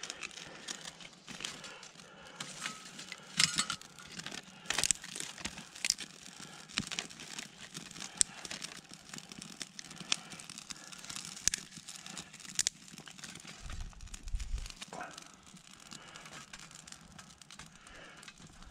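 Birch bark tinder crackling as it burns in a small steel stove, with irregular sharp snaps, mixed with the crinkle of bark and twigs being handled.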